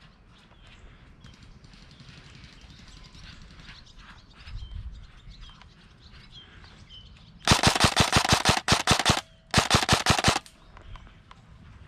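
Airsoft rifle firing two rapid full-auto bursts with a short pause between them, starting about seven and a half seconds in. The first burst lasts about a second and a half, the second under a second.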